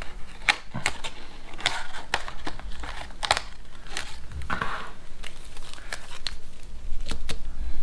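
Packets of drink bouillon crinkling and rustling as they are lifted out of a small emergency-ration tin, with scattered light clicks and taps.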